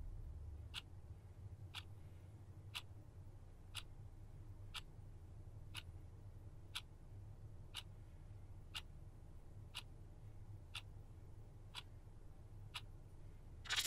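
A clock ticking steadily, one sharp tick about every second, faint over a low room hum.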